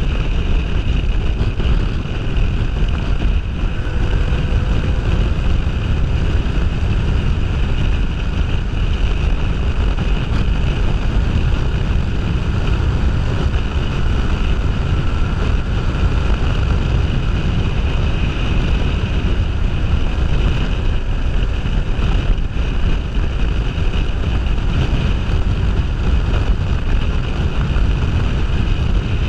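Heavy wind noise buffeting a helmet-mounted action camera on a moving motorcycle, with the Kawasaki Ninja 500R's parallel-twin engine running underneath at road speed.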